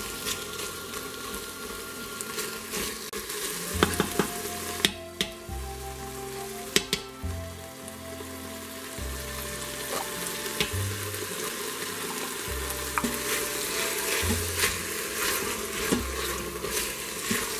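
Stew meat and onions sizzling in hot oil in an Instant Pot's stainless steel inner pot on sauté, stirred with a silicone spatula. A few sharp clicks and scrapes a few seconds in, as a spoon scoops tomato paste from a can into the pot.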